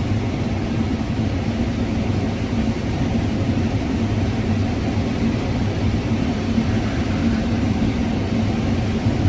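Combine harvester running steadily while cutting corn: a constant low engine and machinery drone with no change in pace.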